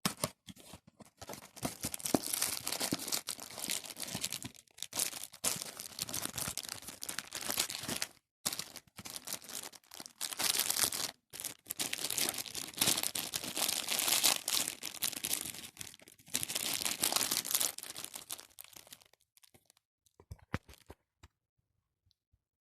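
Packaging being torn open and crinkled by hand, likely the cough syrup box and the wrapping of the cookies inside it. It comes as irregular crackling bursts with short pauses, and dies away near the end.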